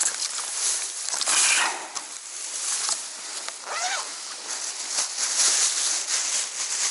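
Dry marsh reeds and grass rustling and crackling close by, with scattered small snaps and a brief squeaky call about four seconds in.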